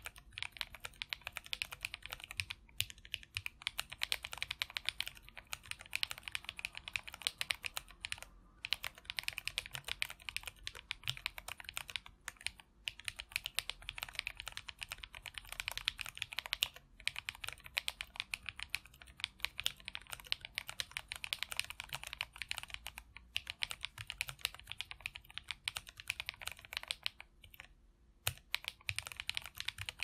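Continuous typing on an Absolem split mechanical keyboard fitted with KTTeron switches (Gateron Milky Yellow housings with KTT long-pole stems) and PBT keycaps on 3D-printed PLA plates. It is a fast, dense run of keystroke clacks with a few brief pauses.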